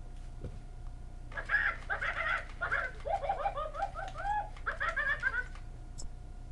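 Squawkers McCaw robotic parrot toy giving a parrot-style squawk and chatter for about four seconds, with a run of quick rising-and-falling chirps in the middle.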